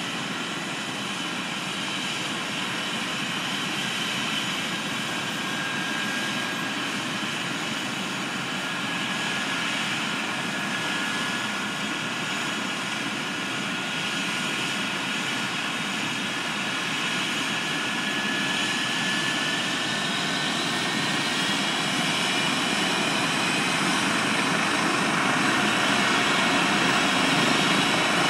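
Medical helicopter running on the helipad: turbine whine and rotor noise, steady at first, then a slowly rising whine that grows louder over the last several seconds as the helicopter winds up toward lift-off.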